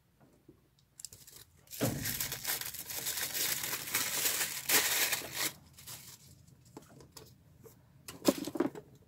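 Plastic wrapping of a Bentgo bento box crinkling and tearing as it is unwrapped: a dense rustle for about three and a half seconds starting near two seconds in, then softer rustles and a couple of light clicks near the end.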